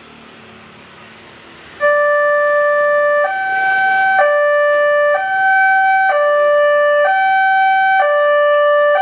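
Railway level-crossing warning alarm from the crossing's horn loudspeaker, starting suddenly about two seconds in. It alternates two electronic tones, low then high, each held about a second, warning that a train is approaching as the barriers lower.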